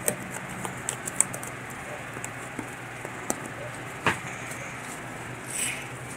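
Slime being worked by hand: scattered small sticky clicks and pops, with a sharper pop about four seconds in and a brief crackle near the end, over a steady low hum.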